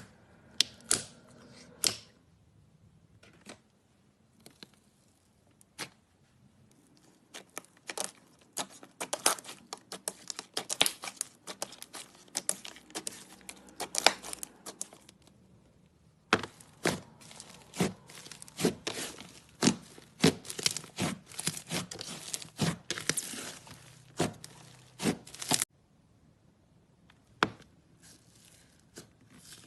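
Slime being squeezed, poked and pulled apart by hand, giving off quick crackling pops and sticky tearing clicks. The pops come in two long busy runs with a short pause around the middle, and are sparse at the start and end.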